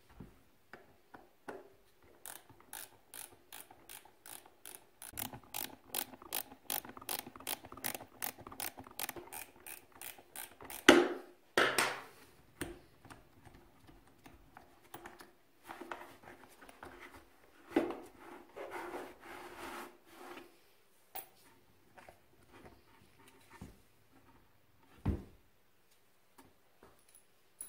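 Ratchet wrench clicking steadily, about four clicks a second, as it undoes the air filter bolt in a dirt bike's plastic airbox. About halfway through comes a sharp knock, then rustling and knocks of the plastic airbox and foam air filter being handled, with one thump near the end.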